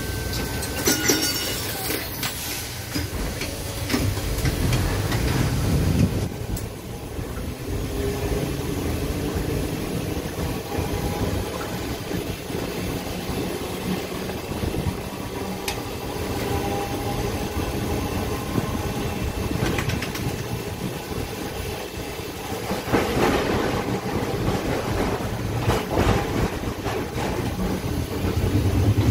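TECO Line streetcar running along its track, heard from inside the car: a steady rumble of steel wheels on the rails. Clacks sound as the wheels pass over rail joints, about a second in and again several times near the end.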